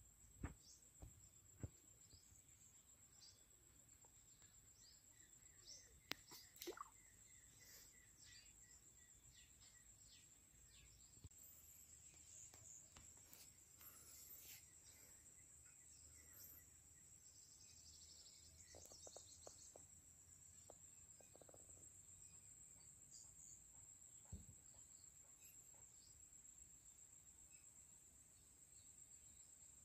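Faint outdoor ambience: insects droning steadily at a high pitch, with scattered short bird chirps and a few soft knocks in the first few seconds.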